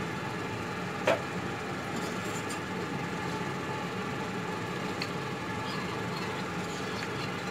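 Steel spoon stirring cornflour and water in a plastic bowl: one sharp clink about a second in, then a few faint ticks, over a steady low hum.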